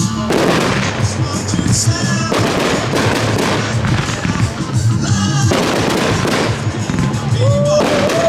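Fireworks bursting and crackling over recorded music from loudspeakers, with a short rising whistle near the end.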